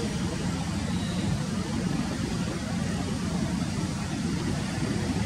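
Distant Airbus A350 jet engines (Rolls-Royce Trent XWB) running at taxi power, a steady low rumble.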